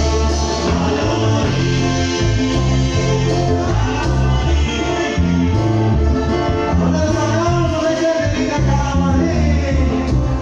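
Live cumbia band playing, with congas, timbales and drum kit keeping the beat.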